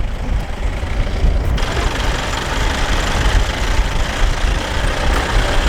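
Safari jeep driving: a steady low engine and road rumble, with a hiss of wind and road noise coming in about a second and a half in.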